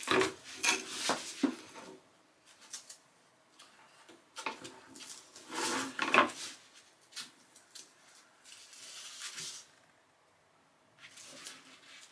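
Upholstery foam sheets and a thin board being handled on a wooden bench: rubbing and scraping with light knocks, in irregular bursts, loudest in the first two seconds and again around six seconds in.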